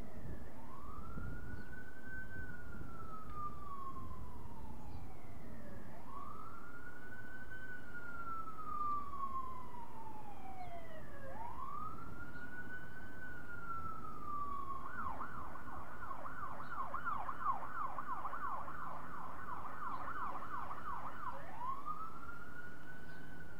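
Emergency vehicle siren in a slow wail, each rise and fall taking about five seconds, switching about fifteen seconds in to a fast yelp of two to three cycles a second, then back to the wail near the end, over a steady low rumble of city traffic.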